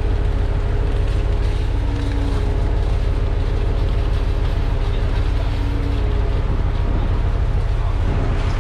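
Heavy diesel engine of a concrete truck running steadily during the pour, a deep constant rumble with a faint hum above it.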